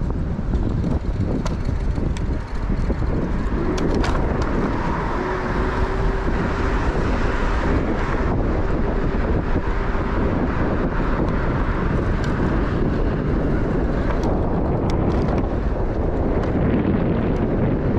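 Steady wind buffeting the microphone on a moving Bird electric scooter, a dense low rumble with a few sharp clicks.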